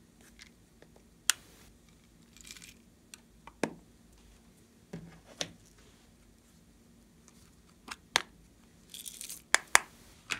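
Small plastic slime cases being handled on a table: a scatter of sharp clicks and knocks as they are gripped, tapped and set down, with two short scraping rustles of plastic sliding. The loudest clicks come close together near the end.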